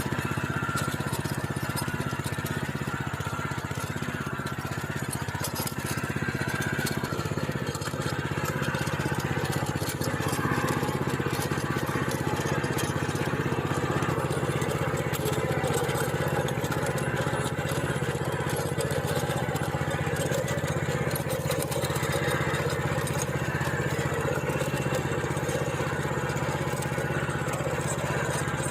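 Small engine of a plough machine (tiller) running steadily under load while working stony soil.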